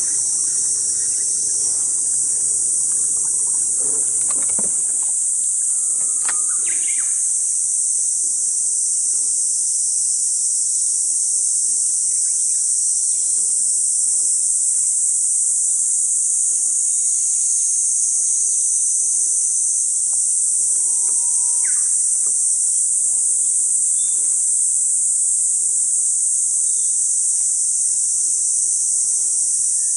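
Cicadas droning in a steady, high-pitched chorus, with a few short bird chirps over it. A low hum of several even tones sounds for the first few seconds.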